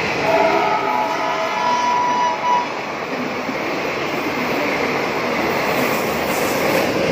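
The Pune–Mumbai Intercity Express, a push-pull passenger train, running at speed through a station: a steady loud rush of coaches and wheels on the rails. A few high steady tones sound over it for the first two and a half seconds.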